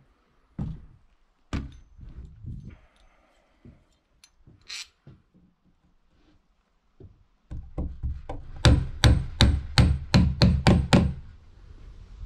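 Hammer driving a bolt into a pre-drilled hole in a wooden brace. A few scattered knocks come first, then a quick run of about ten sharp blows, the loudest sound, in the last few seconds.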